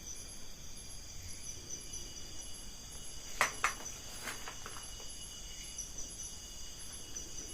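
Steady high-pitched chorus of insects chirring, with a faster pulsing trill above it. A few short knocks or clicks come about three and a half seconds in and again a second later.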